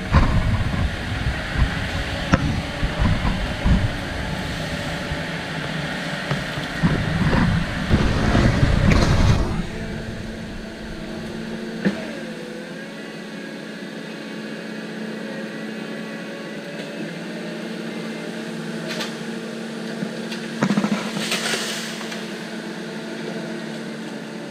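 Steady mechanical hum with a held tone. For the first ten seconds or so a heavy low rumble with scattered knocks lies under it, then stops suddenly, leaving only the hum.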